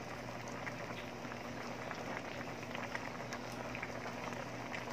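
Seafood broth bubbling steadily in a large metal pan on the stove, a continuous fine crackle of popping bubbles, with a faint steady hum underneath.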